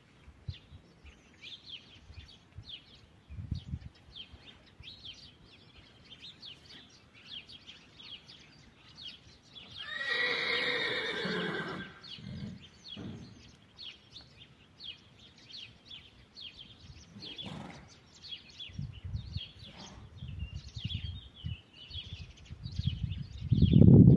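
A horse whinnying once, about ten seconds in: one loud call lasting about two seconds. Small birds chirp faintly throughout, and a loud low rumble comes near the end.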